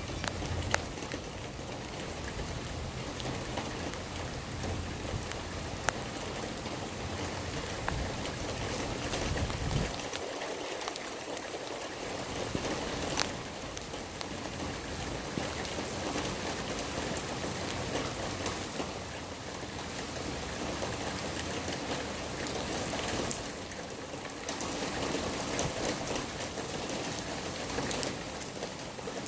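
Steady rain falling, with scattered sharp drop hits close by.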